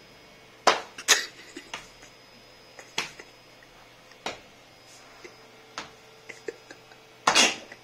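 Scattered light clicks and taps from a person shifting on a floor and pressing their legs apart against a wall during a straddle stretch, about seven in all, with one louder short burst of noise near the end.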